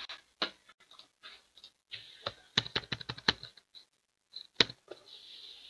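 Computer keyboard keys being typed on: scattered clicks, a quick run of keystrokes about two and a half seconds in, and one sharper, louder click a little later.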